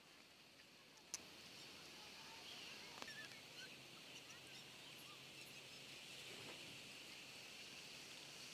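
Near silence: faint outdoor background hiss, with a couple of small clicks and a few faint short chirps.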